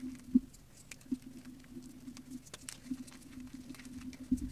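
Reformed gym chalk crumbled between fingers, crumbs and powder pattering down onto a heap of crushed chalk: scattered small crackles with a few sharper crunches, the loudest about a third of a second in and about a second in, and a duller thud near the end.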